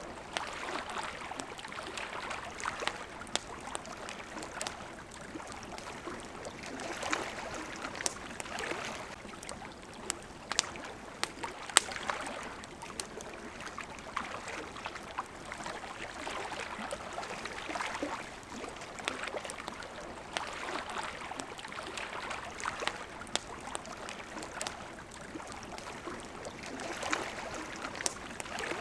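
Water lapping in soft swells every couple of seconds, with a campfire crackling and snapping over it in sharp pops. One pop, a little before twelve seconds in, is the loudest.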